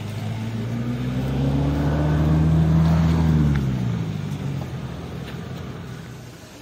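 A motor vehicle passing close by: its engine swells to a peak about three seconds in, then fades as its pitch drops.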